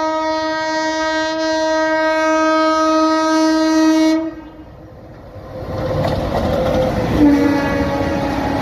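An Indian Railways WAP-7 electric locomotive sounds a long, steady horn blast that cuts off about four seconds in. After a brief lull the train's rumble and clickety-clack of wheels on rail joint swell up as it passes close by, with a fainter, lower horn-like tone over it near the end.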